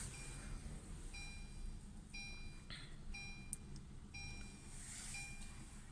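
Car's electronic warning chime beeping steadily, a short high beep about once a second.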